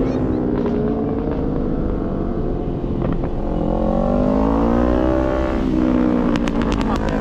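Motor vehicle engines running, with one revving: its pitch climbs and then falls back about four to five seconds in. A few sharp clicks come near the end.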